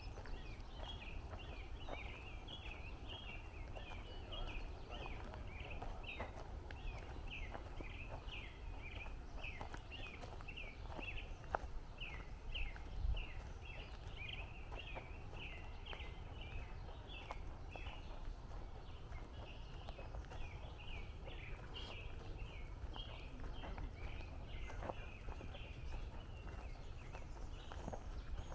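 Woodland birdsong: quick, short chirping notes repeated continuously, a couple per second, over a low steady rumble of wind and faint footsteps on the trail.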